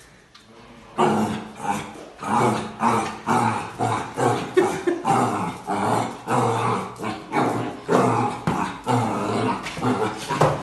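Small black puppy barking and growling at its own reflection in a mirror, in short repeated barks about two a second, starting about a second in.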